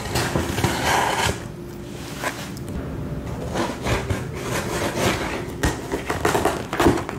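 Cardboard shipping box being opened by hand: a continuous run of scraping and rustling of cardboard and packing, broken by many small knocks and clicks.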